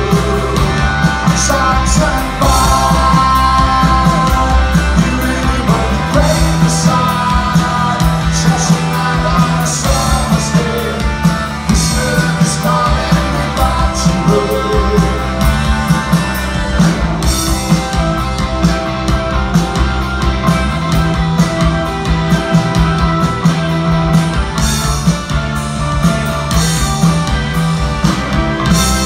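Rock band playing live: electric guitars, keyboard, bass and drums under a male lead singer.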